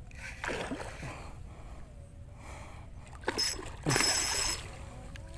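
A hooked barramundi thrashing and splashing at the water's surface, with the loudest splash about four seconds in.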